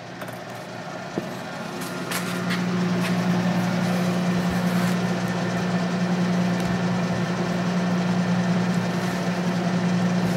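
Clausing Colchester 13 x 40 inch metal lathe running under power, its spindle and headstock gearing giving a steady hum. It grows louder over the first few seconds as it comes up to speed, with a few faint clicks, then runs evenly.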